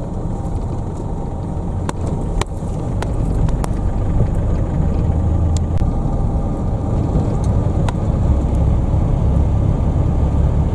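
Pickup truck driving along, heard from inside the cab: a steady low engine and road rumble that grows a little louder a few seconds in, with a few short sharp ticks.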